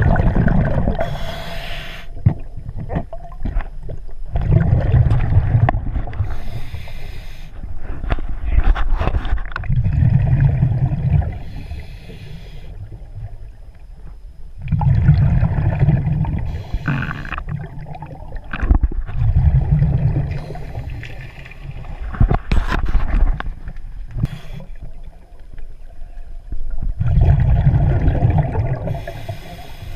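Scuba breathing through a regulator, heard underwater: breaths and bursts of exhaled bubbles repeating about every five seconds.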